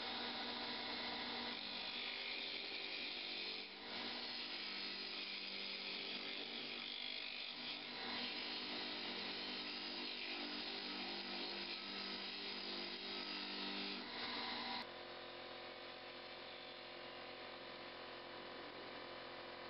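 Wood lathe running with a steady motor hum while a hand-held turning tool cuts into a small spinning white oak plug, giving a continuous scraping, rubbing noise. About fifteen seconds in the cutting noise becomes quieter and the hum carries on.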